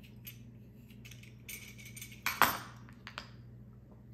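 A red vegetable peeler scraping shavings off a semi-sweet chocolate bar in short strokes, then one sharp clack about two and a half seconds in as the peeler and chocolate are set down on a wooden cutting board, and a lighter knock after it. A low steady hum runs underneath.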